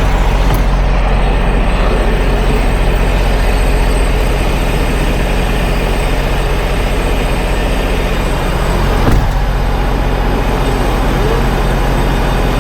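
Kenworth semi truck's diesel engine running close to the microphone with a steady drone, and a brief knock about nine seconds in.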